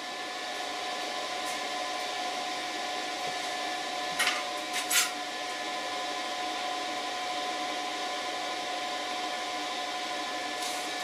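Steady whir of electronics cooling fans with a faint electrical whine, from a power inverter and battery charger running under about 490 watts of load. Two brief rustling scrapes come about four and five seconds in.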